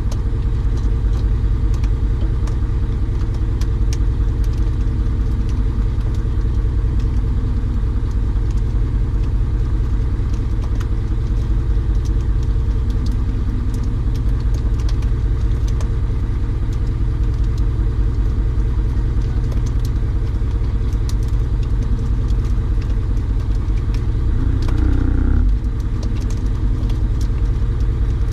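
A steady, low engine rumble with an even pulse. It swells briefly about 25 seconds in, then settles slightly quieter.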